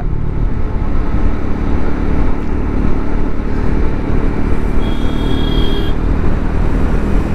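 Triumph Scrambler 400 X's single-cylinder engine running steadily at highway cruising speed, under heavy wind rush on the microphone. A faint high steady tone sounds for about a second, some five seconds in.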